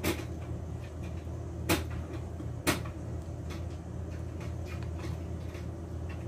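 A wire whisk and a small glass bowl clinking against a glass mixing bowl as melted butter is poured and stirred into puto batter: three sharp clinks, about a second in and twice more a second later, with lighter taps between, over a steady low hum.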